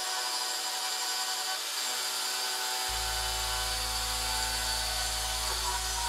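CNC milling machine's end mill cutting titanium, a steady machining whine with many held tones. Low background music bass comes in about three seconds in.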